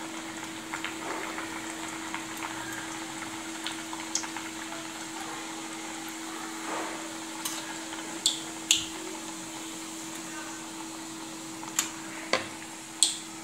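Ghare (sweet pumpkin-and-jaggery puris) sizzling and bubbling in a shallow layer of hot oil in a kadhai on a low gas flame. A few sharp ticks of the steel spatula against the pan come in the second half, over a steady low hum.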